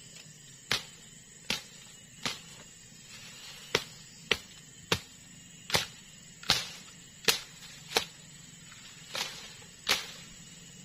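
Machete hacking through undergrowth to clear a path: about a dozen sharp chops, roughly one every second or a little faster, with a short pause a little past halfway.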